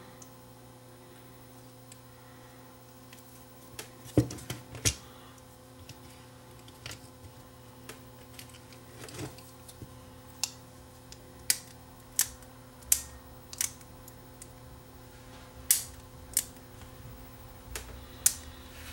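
Scattered sharp clicks and taps of a small plastic Walkman case and AA battery being handled, pressed and fitted, over a faint steady hum. The battery and case are being worked to make contact, which is suspected to be poor.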